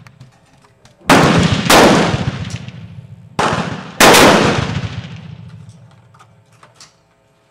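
Springfield Armory XDm 9mm pistol firing four shots in two quick pairs, the first pair about a second in and the second just after three seconds. Each shot trails off in a long echo.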